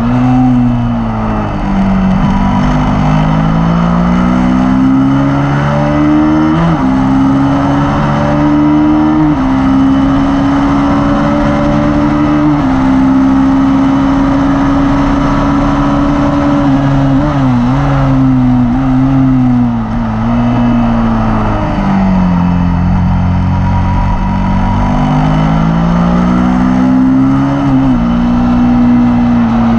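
Suzuki SV motorcycle's V-twin engine at track pace, recorded onboard: revs climbing through quick upshifts, then a steady high note along the straight. Partway through the revs fall in a run of short downshift blips under braking, then climb again out of the corner, over a steady rush of wind.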